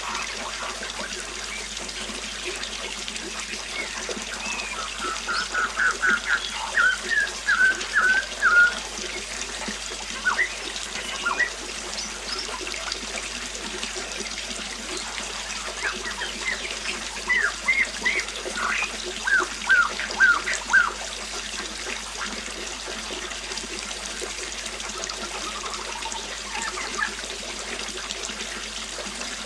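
River water flowing steadily, with a small songbird calling over it in quick series of short chirps, in two main spells about a fifth and two thirds of the way through.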